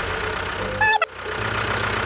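An engine running steadily at idle, with a short high-pitched call about a second in that cuts off abruptly.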